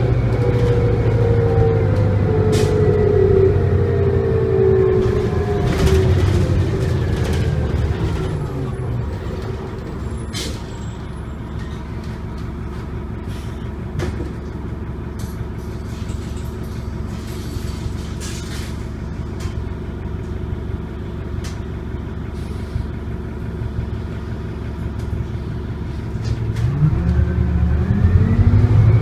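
Detroit Diesel Series 50 diesel engine of a New Flyer D40LF bus, heard from inside the cabin. Its pitch falls over the first several seconds as it winds down, it settles to a steady low idle, and near the end it rises and gets louder as the bus pulls away.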